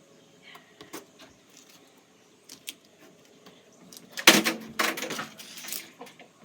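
Water balloon thrown into a washing machine drum, hitting it with a loud sudden impact about four seconds in followed by about a second and a half of noise; the balloon does not pop. A few light clicks come before it.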